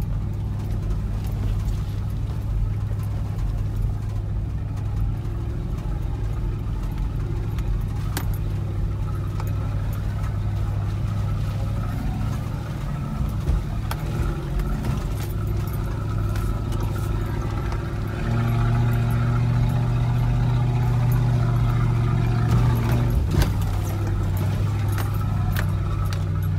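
Toyota Land Cruiser 100's V8 engine running at low speed, heard from inside the cabin as it crawls over a rocky dirt track, with light rattles and knocks. About 18 seconds in, the engine note rises and grows louder for about five seconds, then drops back.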